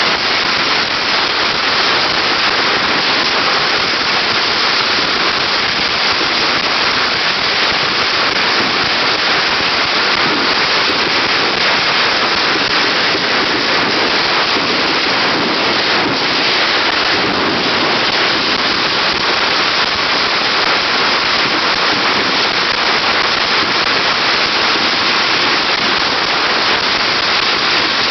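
A long string of firecrackers going off in a rapid, unbroken crackle that holds an even loudness throughout.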